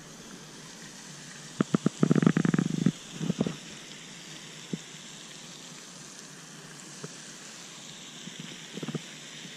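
Spinning fishing reel: a few sharp clicks, then about a second of rapid ticking as it is cranked, and a shorter burst of ticking just after.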